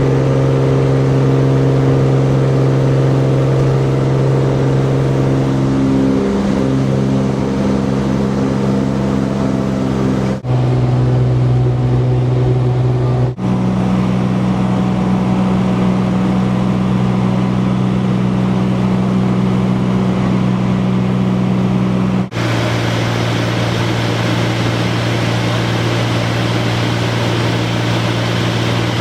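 Cessna 210 Centurion's six-cylinder piston engine and propeller droning steadily. The pitch jumps abruptly three times, at short breaks in the recording about ten, thirteen and twenty-two seconds in.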